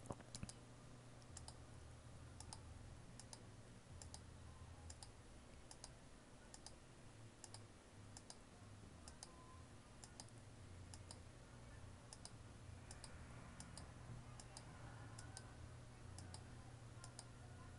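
Near silence: a faint low hum with quiet computer clicks, irregular and roughly once a second, as each window of the lens calibration tool is closed in turn.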